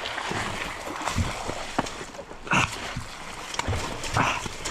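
Kickstarter strokes on a water-flooded 85cc two-stroke dirt bike, with irregular thuds and the engine not firing: water has got into the airbox and over the carburetor.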